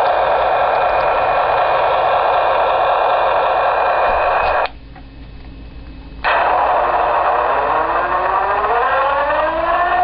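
Diesel locomotive sound from an HO-scale Blue Line (Broadway Limited Imports) EMD SD40-2 model's onboard sound system, running steadily. It cuts out suddenly for about a second and a half midway, then returns with a whine that rises steadily in pitch.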